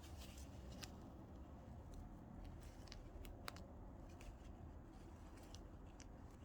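Faint handling sounds of hand sewing: a few light clicks and ticks, the clearest about halfway through, over a low steady hum.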